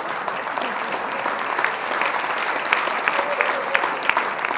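Audience applauding, a dense patter of many hands with individual sharp claps standing out through the second half.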